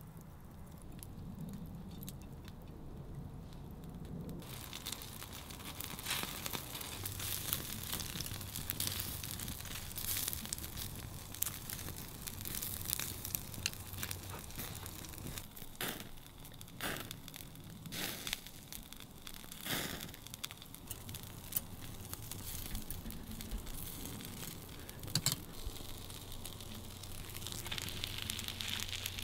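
Wood campfire crackling, with many sharp pops. The crackle grows louder about four seconds in.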